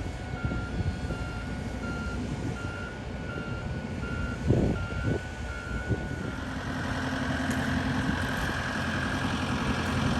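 A machine's warning beeper beeping steadily, about two to three beeps a second, with a couple of thumps around the middle. About six seconds in the beeping stops and a diesel-type engine runs steadily, slowly growing louder.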